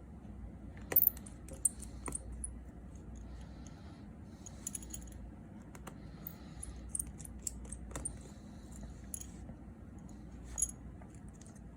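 Small metal repair tools clicking and tapping against the parts of an opened iPhone 6s Plus as the front camera flex and earpiece are worked loose, with light scattered clicks and a sharper clack about a second in.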